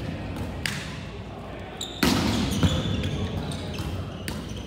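Volleyballs being hit and smacking onto a wooden gym floor during play: several sharp slaps, the loudest about two seconds in, echoing in a large hall over a murmur of distant voices.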